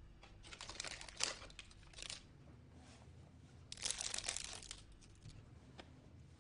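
A disposable syringe's paper-and-plastic wrapper crinkling and tearing open, in crackly bursts about a second in and again, louder, about four seconds in.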